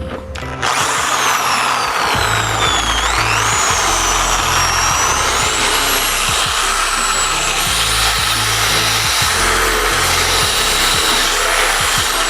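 Electric drill boring a hole through the motorcycle's body panel for a toggle switch. Its motor whine starts suddenly about a second in, shifts up and down with the load, and falls away as it spins down near the end.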